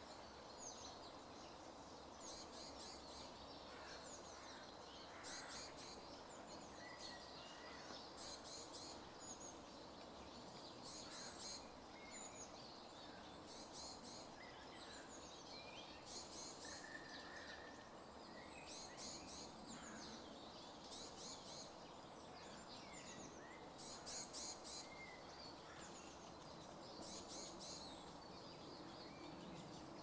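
Faint small songbirds singing in the background: a short, very high trill repeated about every two and a half to three seconds, about ten times, with scattered thin chirps between, over a steady background noise.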